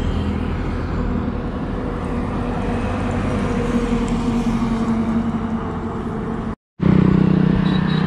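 Highway traffic going by: a steady drone of truck and motorbike engines with tyre noise on the road. About six and a half seconds in, the sound drops out for a moment and comes back louder, with a steady low engine hum.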